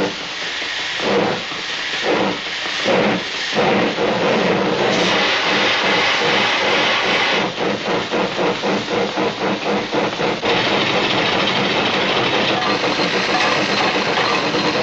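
Steam train sound: a few slow, separate hissing chuffs, then from about halfway through a faster, steady rhythmic chugging and clatter, like a locomotive pulling away and picking up speed.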